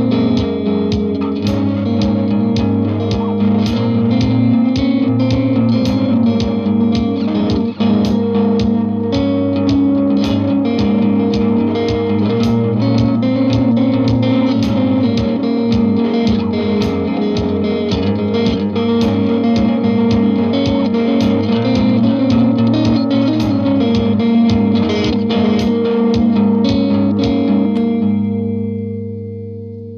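Clean electric guitar from a Fender Thinline Jaguar through a Vox AC15 picks a steady stream of notes over a held, looped guitar chord. The chord comes from a Boss RE-20 Space Echo feeding a TC Electronic 3rd Dimension chorus and a Caroline Shigeharu fuzz. The playing fades out near the end.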